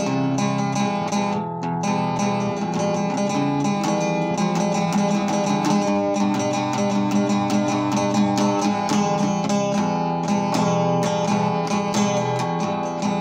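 Acoustic guitar being strummed, its chords ringing on under a steady run of strokes.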